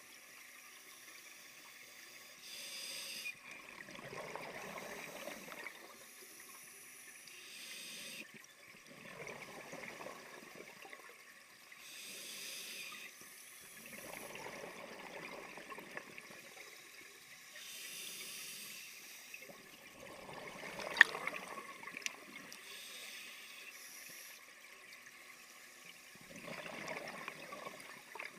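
Scuba regulator breathing underwater: a short hiss on each inhalation, then a longer burst of bubbling exhaust on each exhalation, about one breath every five to six seconds. A single sharp click about two-thirds of the way through.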